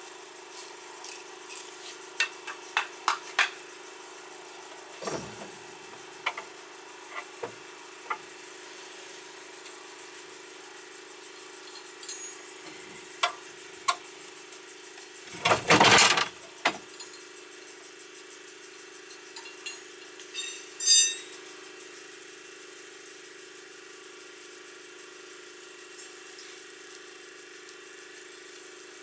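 Metal clinks, knocks and chain rattles from a MerCruiser 120 engine swinging on a hoist chain, with one loud clattering clank about halfway through. A steady low hum runs underneath.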